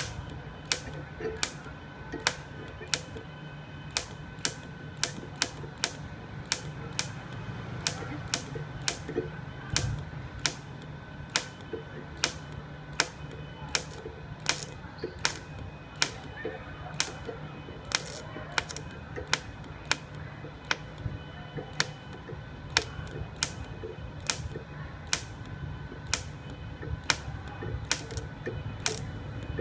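Inverter welder converted from a ZX7 stick machine to TIG, in a welding test: a steady hum with sharp clicks about one and a half a second, somewhat unevenly spaced.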